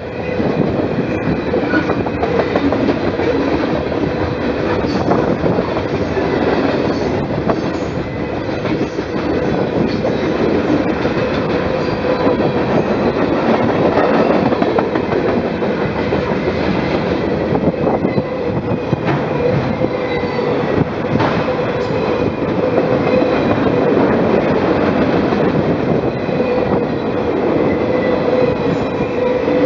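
Freight cars rolling past on the adjacent track: a steady rumble of steel wheels on rail with intermittent clicks over the rail joints and a steady whining tone.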